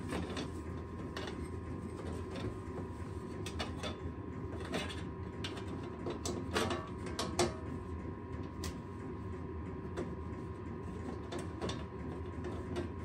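Irregular light metallic clicks and taps of hand tools and bolts, with a couple of quick clusters, as the Torx bolts holding the exhaust top plate are threaded in by hand.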